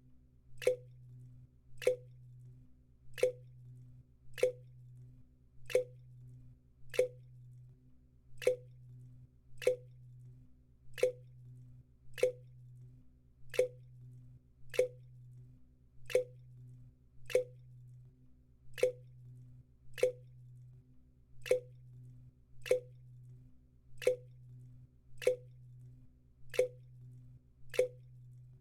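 Water from a leak dripping into a bucket: single drops land in a steady rhythm, about one every second and a quarter, each a short plop with a brief ringing note. A faint low hum runs underneath.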